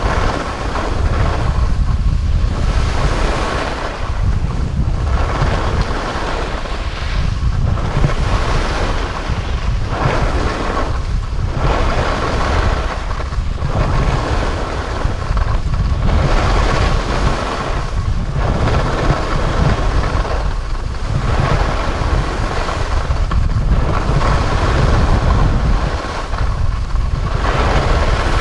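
Wind buffeting a GoPro's microphone while skiing downhill, as a steady low rumble. The hiss of skis sliding over crusty snow swells and fades every second or two.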